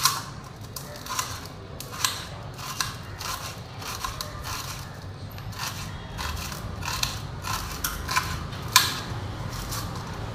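A kitchen knife slicing a red onion on a stainless steel plate: short crisp cuts, each ending in a click of the blade on the steel, about two a second at an uneven pace.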